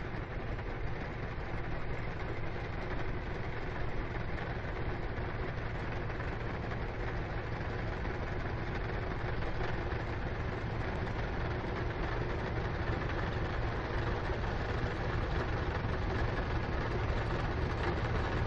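Heavy engine running steadily, its low hum under a constant rushing noise, typical of a railway snowplow or snow blower at work.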